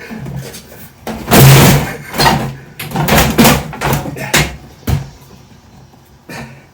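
A string of thumps and knocks as a dishwasher's plastic body is handled and shifted to be tipped over, the loudest about a second and a half in, with a sharp knock near the five-second mark.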